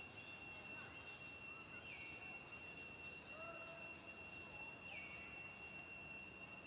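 Faint outdoor ambience: a steady high-pitched insect drone runs throughout, and a bird gives a short falling call twice, about two and five seconds in. A fainter, lower call comes about three and a half seconds in.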